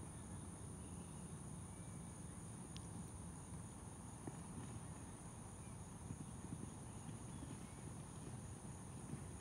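Steady high-pitched insect chorus, two unbroken buzzing tones over a low rumble.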